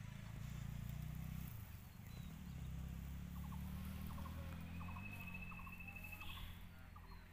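A low, steady motor hum, with short chirping calls repeating about every two-thirds of a second from about two seconds in.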